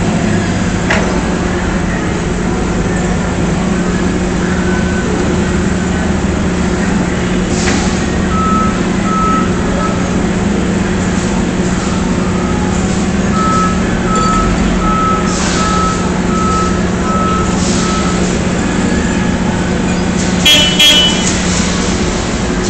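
Forklift engine running steadily, with two runs of evenly spaced short reversing-alarm beeps in the middle. Near the end comes a brief high-pitched squeal, the loudest moment.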